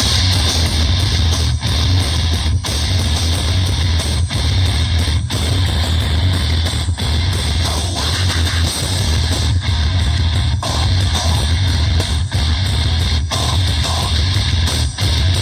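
Rock music with electric guitar over a heavy, steady bass.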